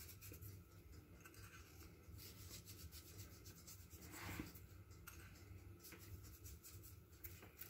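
Near silence, with faint rubbing and scratching from fingers pinching sugar and sprinkling it over cake batter; a slightly louder rustle about four seconds in.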